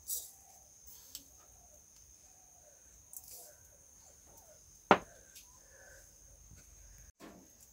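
Sugar pouring off a spoon into an empty cast-iron pot, a brief hiss at the start. Then mostly quiet under a steady high-pitched whine, with one sharp click about five seconds in.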